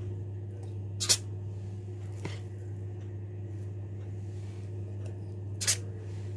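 A spoon knocking as cake batter is spooned into cupcake cases: two sharp taps, about a second in and near the end, with a fainter one between, over a steady low hum.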